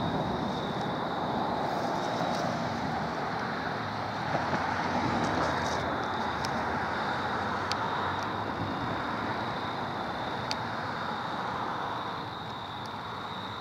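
Distant road traffic: a steady rushing noise that swells and fades as vehicles pass, with a thin steady high tone over it.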